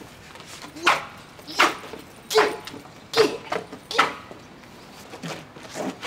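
A person's excited wordless yelps: five short shouts in quick succession, about one every 0.8 seconds, stopping about four seconds in.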